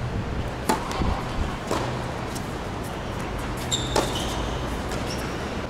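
Tennis ball struck by rackets and bouncing on a hard court during a rally: sharp pops, three in the first two seconds and one about four seconds in. Short high squeaks, likely sneakers on the court surface, come around that last hit, over steady background noise.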